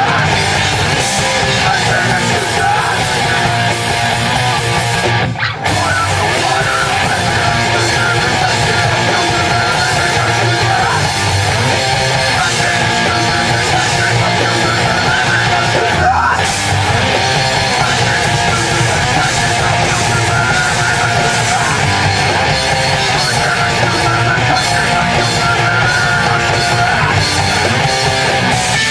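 A rock band playing live, loud and heavy with guitars, with a momentary break about five seconds in.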